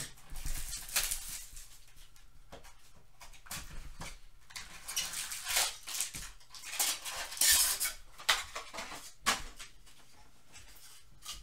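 A cardboard baseball-card vending box being opened by hand and its foil-wrapped card packs pulled out and stacked: crinkling and rustling with sharp clicks and taps, loudest between about five and nine seconds in.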